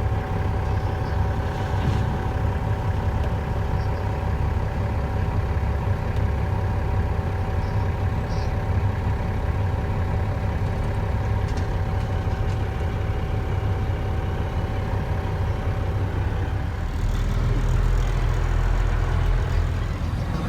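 Dump truck's diesel engine and road noise heard from inside the cab, a steady low rumble with a thin steady whine. About three-quarters of the way through, the engine note drops deeper and gets a little louder.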